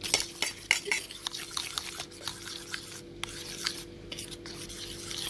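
A metal fork stirring coconut curry premix powder into water in a stainless steel bowl: quick, irregular scraping and clinking of the fork against the bowl.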